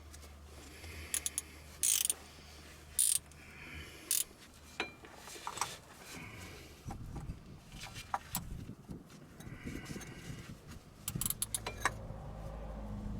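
Metal hand tools clicking and scraping during oil-change work on a vehicle: a string of short, sharp clicks and rattles at irregular intervals, with pauses between.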